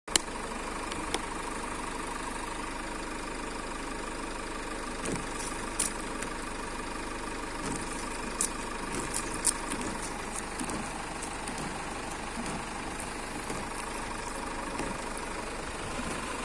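Peugeot 607 engine idling steadily, with a few short sharp clicks and knocks over it, several of them between about six and ten seconds in.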